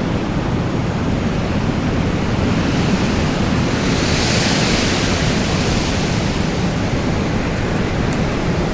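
Wind blowing steadily with a heavy low rumble, swelling into a brighter hissing gust about halfway through.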